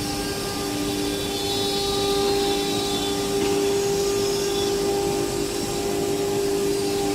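CNC router spindle running steadily with a held whine, cutting sheet wood panel with a noisy rush of cutting and dust extraction underneath.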